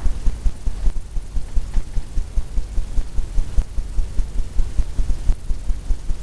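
Low throbbing hum, pulsing unevenly several times a second.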